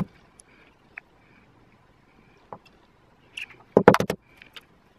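Eggs being tapped and cracked against the rim of a small ceramic jug: a sharp click at the start, a few faint ticks, then a quick cluster of loud cracks about four seconds in.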